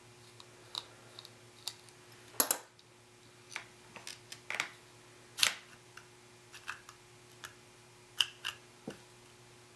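Irregular small clicks and taps of a little screwdriver and plastic parts being worked on a toy sonic screwdriver, opening it up to get at the batteries. The sharpest clicks come about two and a half and five and a half seconds in.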